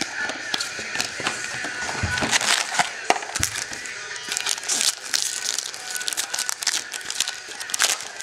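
Foil wrapper of a Topps Chrome baseball card pack crinkling and crackling as it is handled and torn open, with cards tapped into a stack on a table.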